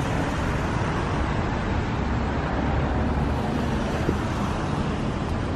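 Steady road traffic noise from a city street: a continuous low rumble with an even hiss over it.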